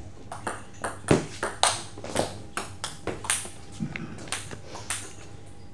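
Table tennis rally: the ball clicking sharply off the bats and the table, about two hits a second. The rally stops shortly before the end.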